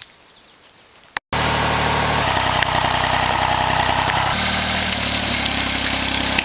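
Engine of the LifeTrac open-source tractor running steadily, its tone changing abruptly twice. A quieter first second ends in a sharp click.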